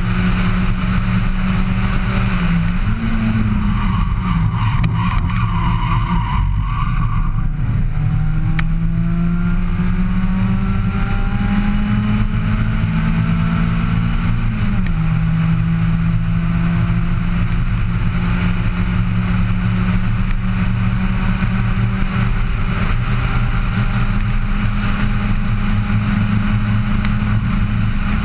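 Abarth 500 EVO2 hillclimb car's engine running hard at speed, recorded onboard. Its note holds steady at high revs, dropping and rising in pitch briefly a few seconds in and stepping down about halfway.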